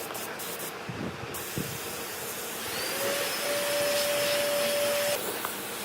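Steady hiss, with a small motor whining on a single steady pitch from a little before halfway until it cuts off suddenly near the end.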